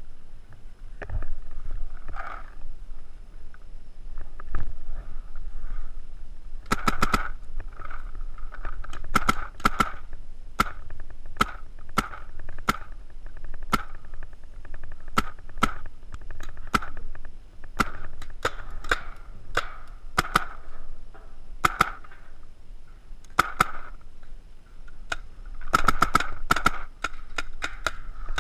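Paintball markers firing, sharp pops in irregular strings of rapid shots. There are a few single shots at first, then frequent volleys from about seven seconds in.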